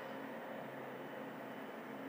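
A steady, unbroken drone of several held tones over a hiss, the unexplained noise heard coming from the sky that is reported as a 'strange sound in the sky'.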